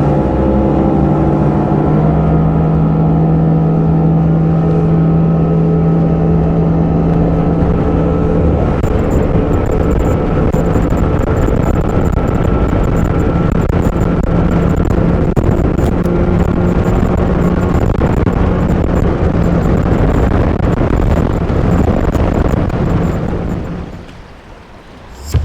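Outboard motor of a bass boat running hard, with a steady engine tone over the rush of water and wind. Near the end it dies down quickly as the boat comes off plane.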